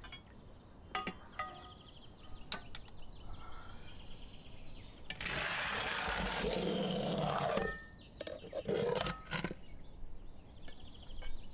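Metal clicks and clanks as a wood-fired brick oven's metal door is opened. About five seconds in, a baking pan is dragged out across the oven floor with a metal hook, a scraping rasp lasting a couple of seconds, followed by a few more knocks.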